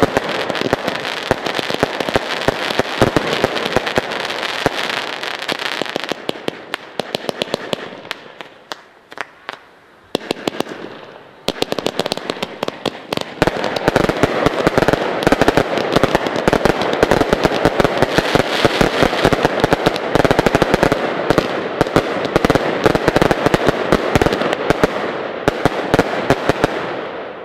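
Zena fireworks going off in a dense barrage of rapid bangs and crackle. It thins out and nearly stops about ten seconds in, then builds back into a dense barrage from about fourteen seconds and fades at the very end.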